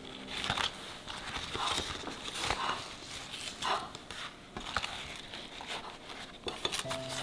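Fresh banana leaf crinkling and rustling in a series of irregular crackles as hands fold it around a mound of rice.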